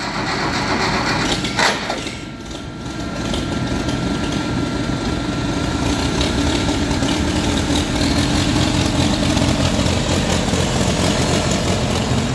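1952 Farmall Super A tractor's four-cylinder gasoline engine starting and running, briefly dipping about two seconds in before settling into a steady idle.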